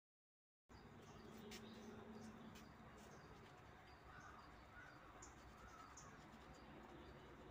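Near silence: faint outdoor ambience with a few faint bird chirps and occasional soft clicks.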